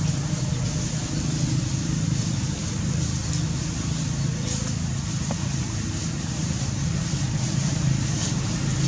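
Steady low rumble of outdoor background noise with a hiss above it, unchanging throughout.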